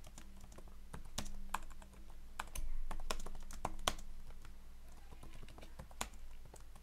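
Computer keyboard being typed on: irregular key clicks, a few per second, over a faint steady low hum.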